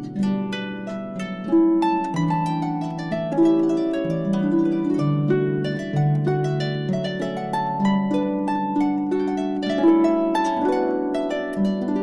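Harp music: a steady stream of plucked melody notes ringing over lower bass notes.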